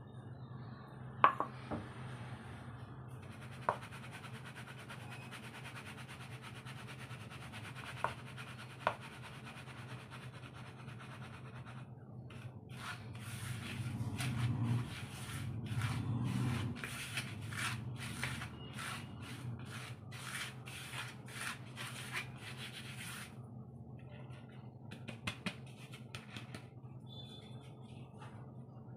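Hands rubbing and scraping gram flour out of a small plastic bowl into a larger plastic bowl: a run of quick, dry rubbing strokes through the middle, loudest a little after the middle, over a steady low hum. A few light clicks come before it.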